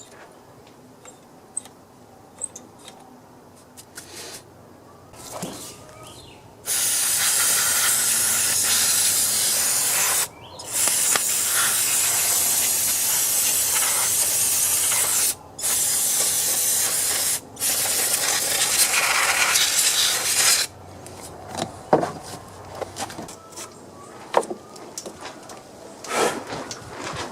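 Pressurized spray hissing in four long bursts with short breaks between them, blasted onto a corroded, gunked-up automatic choke linkage to free it up, with small clicks and taps before and after.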